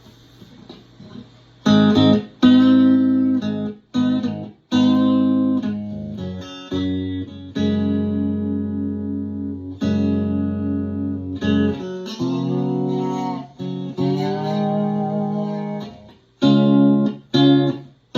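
Chambered-body Telecaster electric guitar played with a slide: G-major arpeggios of clean plucked notes that ring out, glide between pitches and are damped short between phrases. The playing starts about two seconds in.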